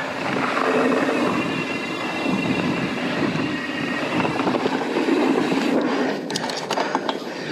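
Mountain bike coasting downhill on dirt singletrack: steady tyre and rolling noise with the Industry Nine Hydra rear hub's freehub buzzing. A quick run of sharp rattles and knocks comes about six to seven seconds in, as the bike goes over rough ground.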